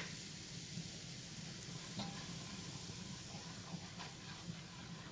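Butter and flour roux sizzling steadily in a saucepan on the stove, with faint scraping and ticks of stirring.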